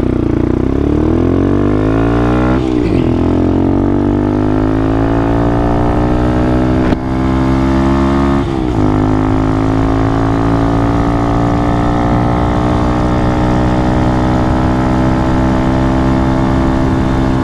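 Honda Grom's 125cc single-cylinder engine accelerating through the gears, its pitch climbing, with upshifts about two and a half seconds in and again about eight and a half seconds in, then pulling on with slowly rising revs. A brief click about seven seconds in.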